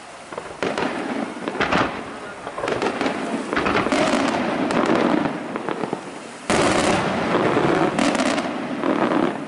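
Aerial firework shells bursting in quick succession, with dense crackling from glittering stars. The bursts build through the middle, and a sudden loud salvo comes about six and a half seconds in and runs nearly to the end.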